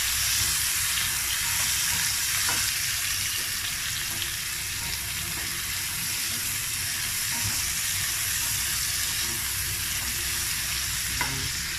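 Browned pork and sliced red onion sizzling steadily in hot oil in a stainless steel frying pan while a spatula stirs them, the sautéing stage of the dish, with a light tap of the spatula on the pan twice.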